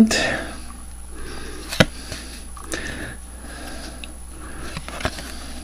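Trading cards being handled and flipped through by hand: soft rustling of card stock with a few faint clicks as cards are slid off the stack.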